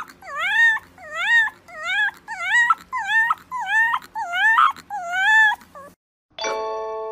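Fluffy white puppy howling in a run of about ten short, high-pitched calls, each dipping and then rising in pitch. Near the end the calls stop and ringing chime tones of background music begin.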